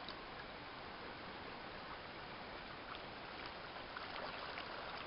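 Water churning and splashing in the propeller wash of a small boat's electric trolling motor, growing louder about four seconds in.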